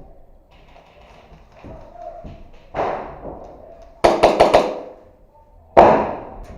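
Airsoft guns firing: a rapid string of about six sharp shots about four seconds in, with louder single reports that ring out briefly a little before and after.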